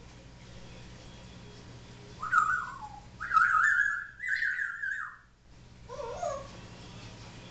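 Congo African grey parrot whistling. About two seconds in comes a short whistle that falls in pitch, then a longer, louder wavering whistle in two parts, and a short lower call near the end.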